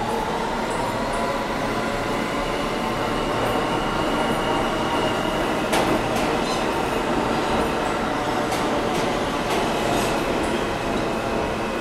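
New York City subway trains running through an underground station: a steady rumble of wheels on rails with a high, steady whine over it, and a sharp clack about six seconds in.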